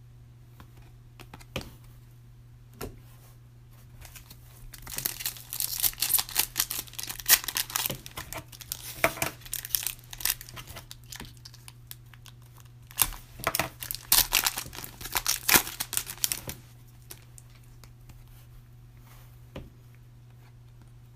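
Trading card pack wrappers being torn open and crinkled by hand, in two bouts of crackling and ripping, with a few light clicks of cards being handled in between.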